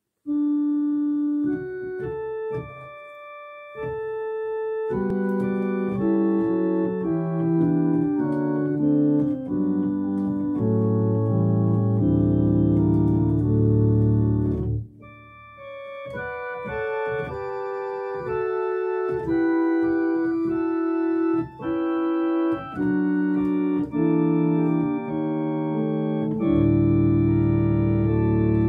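Organ playing slow sustained chords, with deep pedal bass notes coming in about twelve seconds in and again near the end, and a brief break around fifteen seconds.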